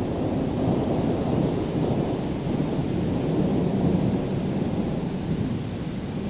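Distant thunder rumbling low and continuously, swelling and easing slowly, over a faint hiss of rain.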